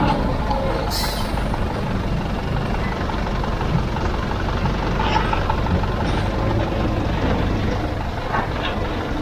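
Heavy diesel construction machinery running steadily, a low engine rumble, with a brief hiss about a second in.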